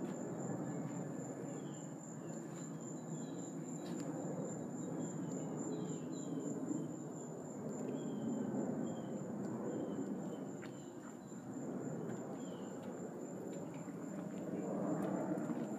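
Small birds giving short, repeated chirps over a steady high-pitched insect drone, with a low rumble of handling or wind noise on the microphone.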